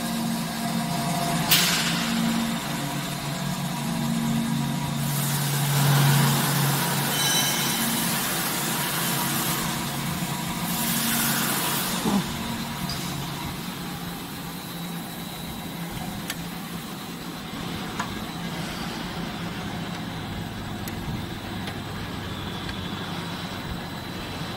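Steady mechanical hum of the vacuum dispersing mixer's machinery. A sharp burst of noise comes about a second and a half in, and longer rushes of noise come at about five to seven seconds and again around eleven to twelve seconds.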